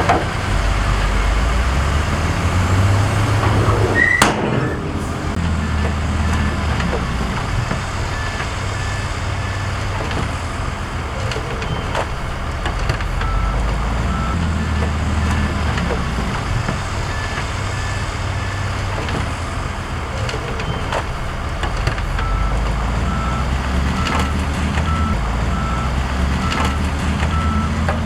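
Heavy diesel construction machinery running with a deep engine rumble, while a reversing alarm beeps in evenly spaced tones through two long spells. There is one sharp knock about four seconds in.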